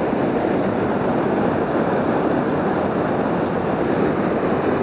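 Steady rush of river water spilling over a dam, an even unbroken noise.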